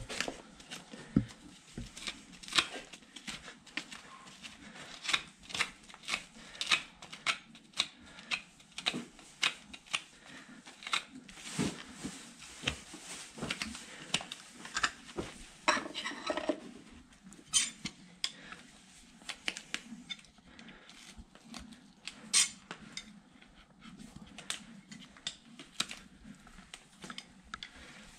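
Metal hoof tools scraping and picking at the underside of a horse's hoof: irregular sharp scrapes and clicks, one to a few a second, as packed dirt and overgrown horn are cleared from the sole.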